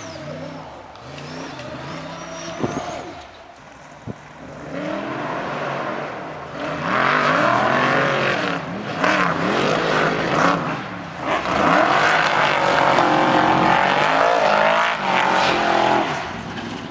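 Off-road race buggies' engines revving hard as they accelerate across a dirt track, the pitch rising and falling with the revs. It gets much louder about seven seconds in and eases off near the end.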